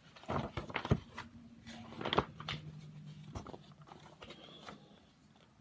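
Handling noise from a paperback picture book: scattered taps, clicks and paper rustles as it is picked up and its pages are turned. A faint steady low hum runs under it.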